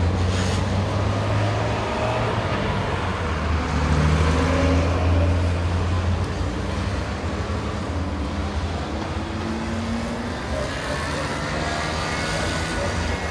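City street traffic with a motor vehicle's engine running close by, its low hum swelling about four seconds in and easing off after six.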